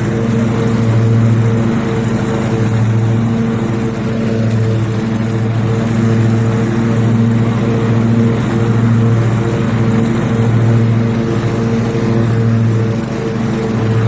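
Poulan Pro riding mower's 24 hp Briggs & Stratton V-twin engine running steadily at a constant speed, its level rising and falling slightly.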